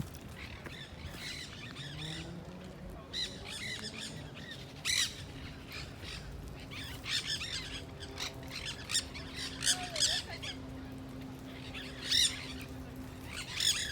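A flock of wild parrots squawking in the surrounding trees: short, harsh calls coming in clusters every second or two, several birds at once.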